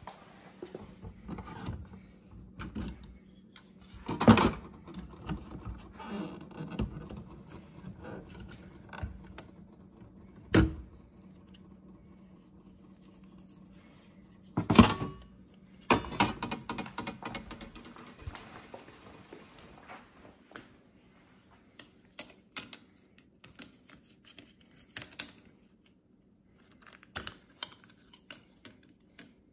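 Hard objects being handled: scattered clicks and light knocks, with three louder knocks spread through. A faint steady hum runs underneath and stops about two-thirds of the way through.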